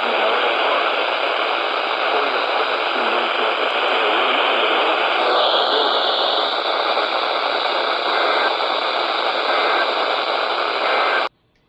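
Loud radio static hiss from a weak or noisy radio signal, with a faint voice barely audible beneath it in the first few seconds. The hiss cuts off abruptly near the end.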